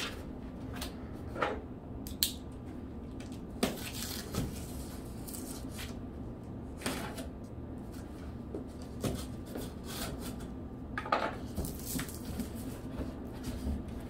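A large cardboard shipping box being opened by hand: scattered short scrapes, rustles and knocks of tape, paper and flaps, over a faint steady room hum.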